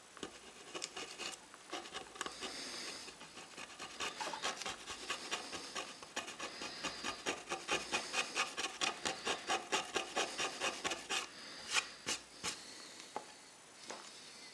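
A double-edged razor blade scraping flakes of old white coating off the bare wood of a tray's rounded rim, in short rasping strokes. The strokes quicken to about four a second through the middle, then stop, with a few single strokes near the end.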